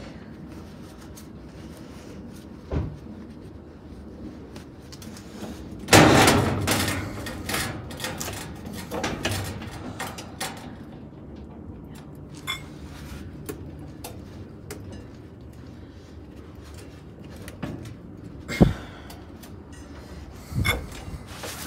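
Metal clanks and knocks as the belt-drive washer's transmission is worked loose in its base: a loud scraping rattle about six seconds in that dies away over a few seconds, and a few sharp single knocks, one near the start and two near the end.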